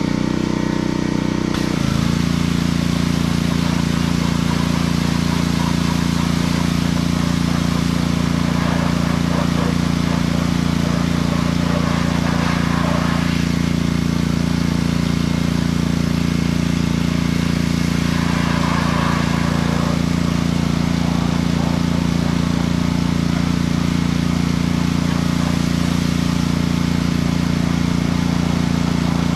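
Pressure washer running steadily under load, with the hiss of its spray rinsing a side-by-side's body. Its note shifts and then holds steady about two seconds in.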